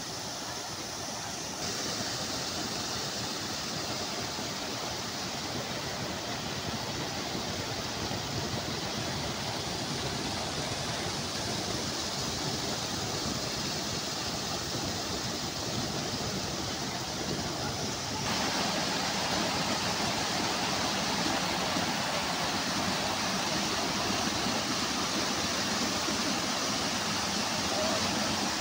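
Small waterfall: a thin curtain of water falling over a rock face and splashing into a pool, a steady rushing splash. It gets abruptly louder about two seconds in and again about eighteen seconds in.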